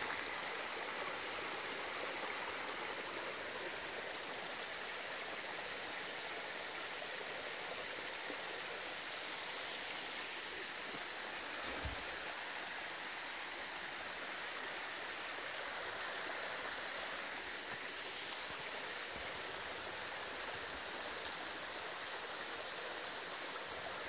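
Shallow forest stream running over rocks: a steady, even rush and trickle of water.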